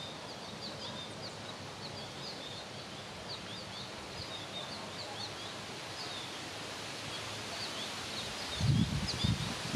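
Small birds chirping in quick, irregular, short high chirps over a steady outdoor background. About a second before the end, wind starts buffeting the microphone with low rumbling gusts.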